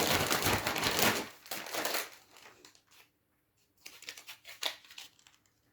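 Plastic food packets rustling and crinkling as they are handled, loudest for the first second and a half, then a few light clicks and rustles.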